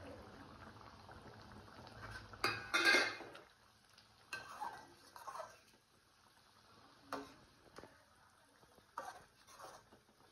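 Steel spatula stirring thick egg masala gravy in a stainless steel kadai, scraping and clinking against the pan. The loudest clatter comes about two and a half seconds in, followed by a few lighter clinks.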